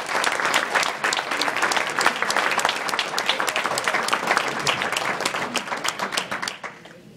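Audience applauding, with a few claps close by standing out; the applause tapers off and stops near the end.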